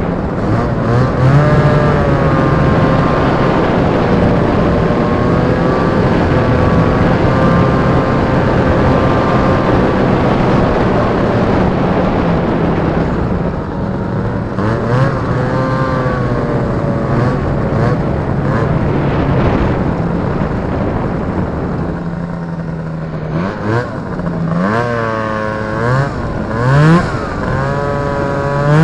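Two-stroke Rotax 503 engine of a Polaris Indy Trail snowmobile, heard from the seat while riding: a steady cruise for the first half, then the revs rise and fall several times near the end as the throttle is opened and eased.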